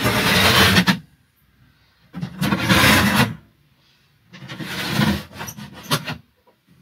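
Dometic motorhome cassette blackout blind being pulled down and let back up, its bar sliding along the side rails with a rubbing rasp, three runs of about a second each. A test after refitting the frame: the blind now runs down fully without jamming.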